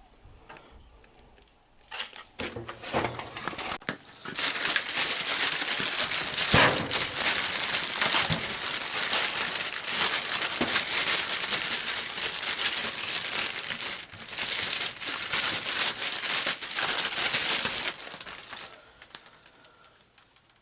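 Plastic packaging being unwrapped: crinkling and crumpling with some tearing, a few short rustles at first, then a long stretch of continuous crinkling that dies away near the end.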